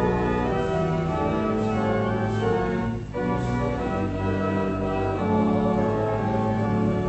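Church organ playing slow, sustained chords, with a brief break between chords about three seconds in.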